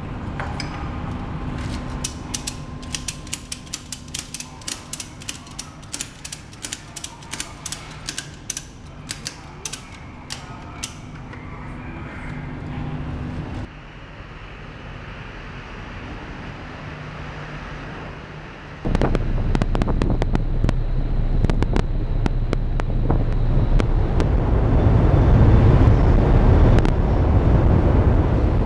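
Ratchet strap being cranked tight, its pawl clicking two or three times a second in uneven strokes for several seconds. Later a loud low steady noise sets in suddenly and grows toward the end.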